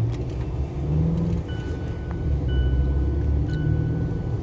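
Car driving, heard from inside the cabin: a steady low rumble of engine and road noise. Faint thin high tones come and go over it.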